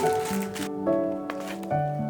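Background music: a melody of held notes changing about every half second, with a few soft clicks or taps under it near the middle.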